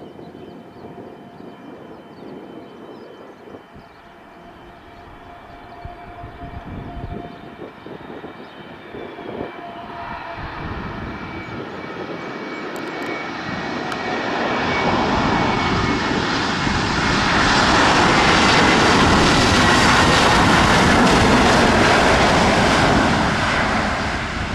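Airbus A321neo jet engines during landing. A whining engine tone slowly drops in pitch as a broad jet rush builds over about fifteen seconds to a loud peak, then eases near the end.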